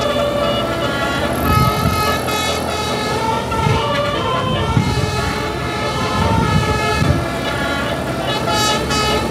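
Tour bus telolet horn: a set of multi-tone air horns playing a tune, several notes sounding together and changing every half second or so.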